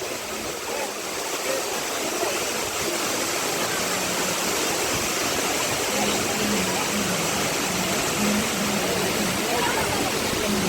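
Waterfall rushing steadily, an even wash of falling water, with faint voices in the background.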